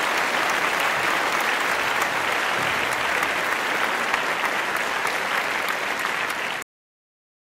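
Applause, a steady patter of many hands clapping, which cuts off suddenly near the end into silence.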